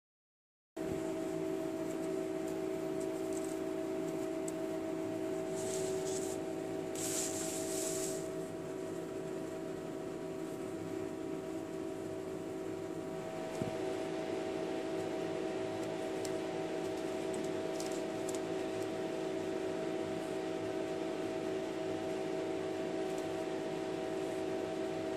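Steady mechanical room hum holding several fixed tones, with a couple of brief soft rustles about six to eight seconds in and a single small click near the middle.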